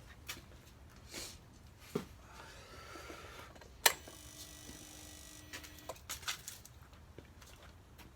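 Keys rattling, then the sharp click of a 2018 Honda Rebel's ignition key being turned on, followed by a steady electric whine-buzz for about two seconds that stops on its own, typical of the fuel pump priming at key-on.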